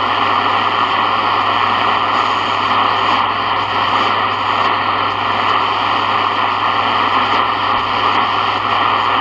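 Sony ICF-7601 shortwave radio's speaker giving out steady static hiss, with a low hum under it, while tuned across an empty upper shortwave band where no station is coming in.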